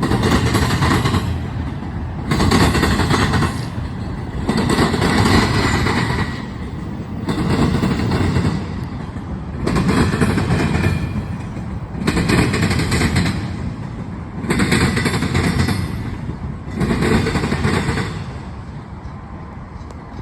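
Empty railroad freight cars rolling past, their wheels clattering and banging over the rail joints in regular loud bursts about every two and a half seconds. The sound eases off near the end as the train moves away.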